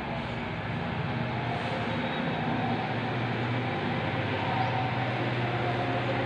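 Steady background hum and hiss that holds level throughout, with no distinct events.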